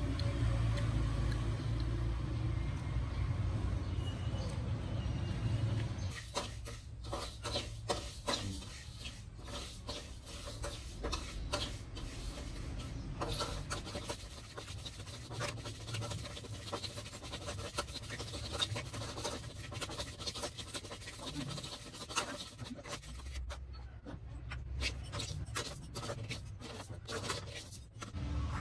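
A low steady rumble for about six seconds, then a metal spatula stirring and scraping raw rice grains around a steel wok as they toast: a long run of quick scrapes and grain rattles.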